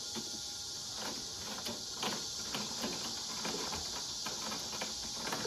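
Sewing machine stitching, heard as a run of irregular clicks and taps over a steady high chirring of insects.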